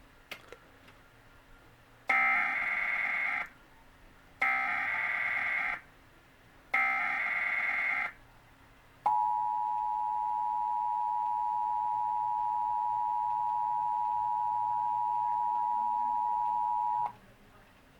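Emergency Alert System test tones from a television's speaker: three bursts of digital data tones (the SAME header), each over a second long, then the steady two-tone EAS attention signal held for about eight seconds before cutting off.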